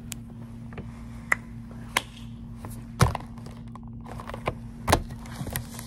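A few separate knocks and taps of things being handled on a tabletop, the loudest about three seconds in, over a steady low hum.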